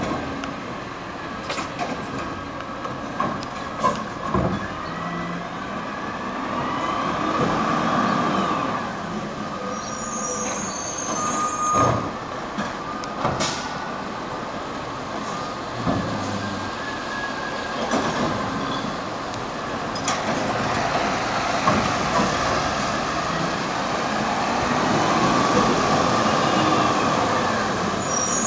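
Garbage truck, a Peterbilt 320 with a Wayne Curbtender body, running on a recycling route: its engine and hydraulics drone and swell as it works the curbside carts, with occasional sharp bangs.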